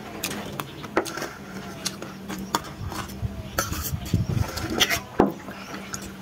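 Forks and spoons clinking and scraping against steel plates while eating noodles: a dozen or so irregular sharp clinks.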